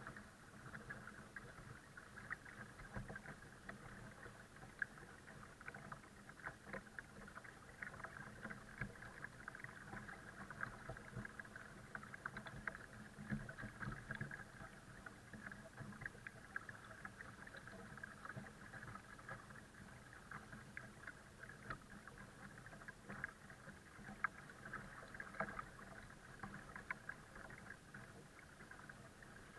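Water lapping and trickling along the hull of a folding kayak as it is towed slowly through calm river water, with many small crackling splashes and drips.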